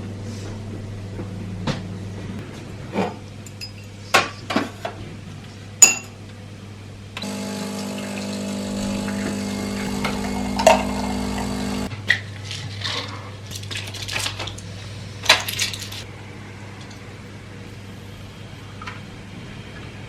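Kitchen sounds: dishes, cups and cutlery clinking and knocking in scattered sharp hits. About seven seconds in, a small appliance hums steadily for about five seconds, then cuts off.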